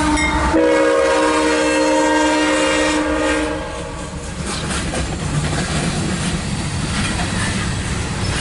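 CSX freight locomotive horn sounding a multi-note chord as the coal train passes, cutting off about three and a half seconds in. After that comes the low rumble and wheel clatter of coal hopper cars rolling by.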